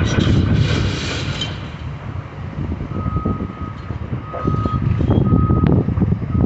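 Demolition machinery running with a low engine rumble and a rattling clatter over the first second or so; from about halfway a backup alarm beeps with a single steady tone, roughly once a second.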